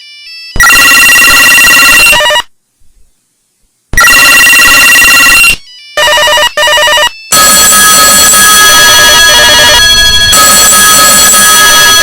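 Telephone ringtones played one after another, loud: two rings of about two seconds each with a silent pause between, a couple of short bursts, then from about seven seconds in a different ringtone that rings on continuously.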